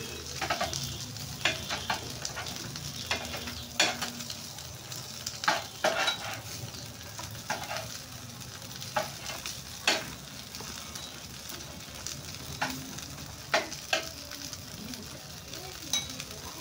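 Mustard-oil-brushed tilapia sizzling on a wire grill over glowing charcoal, a steady hiss broken by sharp, irregular crackles and pops.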